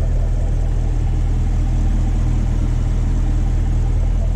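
A Camaro's 6.2-litre LT1 V8, fitted with long-tube headers, idling steadily, heard from over the open engine bay.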